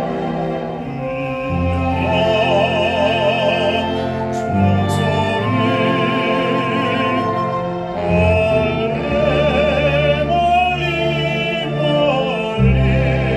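A baritone singing in a classical, operatic style, with wide vibrato on held notes, over instrumental accompaniment whose low notes shift every few seconds.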